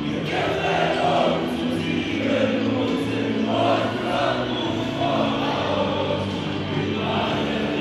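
A crowd of football supporters singing together in chorus over music.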